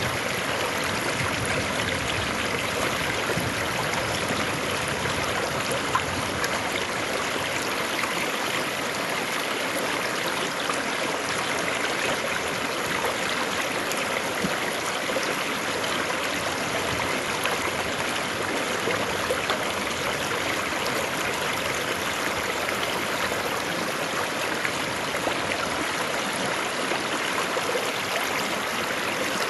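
River water flowing over rocks, recorded close to the current: a steady, even rushing with faint small splashes.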